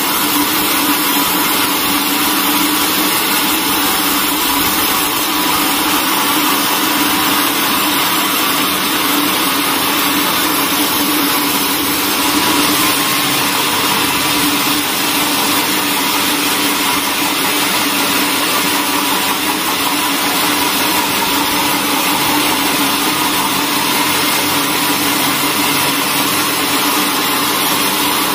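A vertical bandsaw mill sawing lengthwise through a large timber. It makes a steady machine drone with a low hum and a higher whine, both held at one pitch and at one level throughout.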